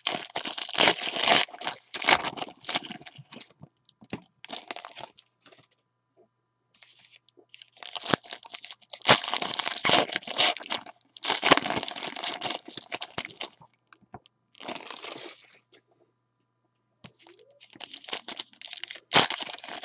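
Foil wrapper of a 2016 Panini Unparalleled football card pack torn open and crinkled, with the cards handled and slid against each other, in irregular bursts of crackling separated by short pauses.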